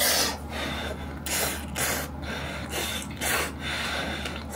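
A person blowing short puffs of breath several times over a bowl of hot salmon rice to cool it, close to the microphone.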